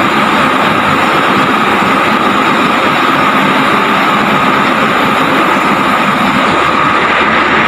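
Steady, loud machinery noise that never changes, with no clangs or knocks from the steel plates.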